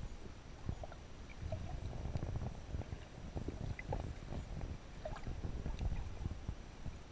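Underwater sound of shallow sea water surging over rocks and sand: a low, uneven rumble that swells and fades, with scattered small clicks and short bubbly blips.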